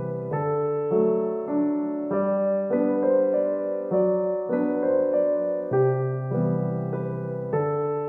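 Background music: a piano-like keyboard playing a steady pattern of notes and chords that change about every half second.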